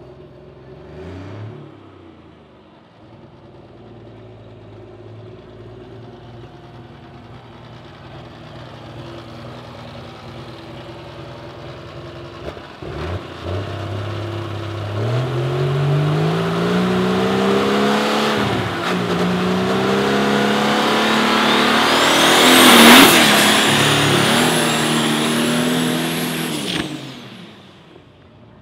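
International DT466 inline-six diesel engine of a triple-turbo dragster running and being revved: a brief rev about a second in, then a long build that climbs in pitch and loudness. A high turbo whistle joins at the loudest point, and the sound cuts off suddenly near the end.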